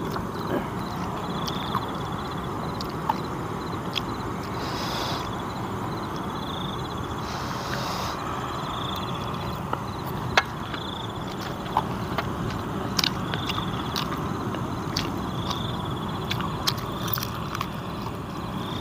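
Steady night-time outdoor background hum, with a short high pulsed trill recurring every two seconds or so. Over it come small scattered clicks and taps of a man eating rice and fried chicken with his fingers from a plastic plate.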